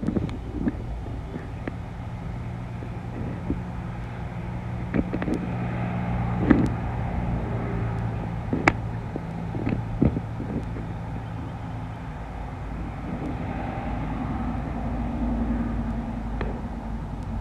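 A steady low motor hum whose pitch shifts about two-thirds of the way through, with scattered sharp clicks and taps.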